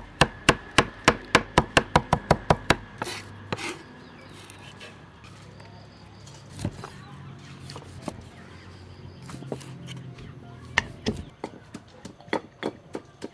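A cleaver chopping fresh herbs on a wooden cutting board: quick, even knocks, about four a second, for the first three seconds or so, then a quieter stretch. Near the end the knocks return, less even, as chopping and pounding with a pestle in a mortar start again.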